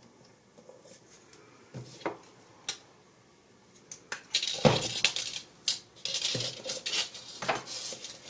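Steel side cutters snipping thin silver craft wire with a sharp click about four and a half seconds in, then a busy run of metal clicks and clinks as the cutters and wire are handled and put down on the work board. A few faint clicks come earlier as the wire is laid along a metal ruler.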